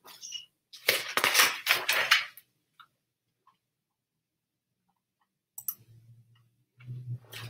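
Pages of a picture book being flipped: a paper rustle lasting about a second and a half, followed by a few faint ticks and a low hum near the end.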